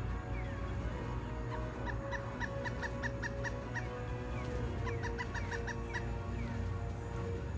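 A woodpecker calling: two quick series of short, repeated notes, the first about two seconds in and the second about five seconds in, over a steady low rumble.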